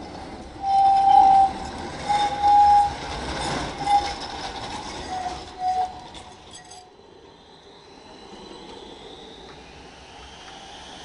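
Tram wheels squealing loudly on curved street track, in several shrill bursts with clicking, as the tram rounds a junction. After about seven seconds the squeal stops, and a quieter steady running noise follows with a faint whine rising in pitch as another tram approaches.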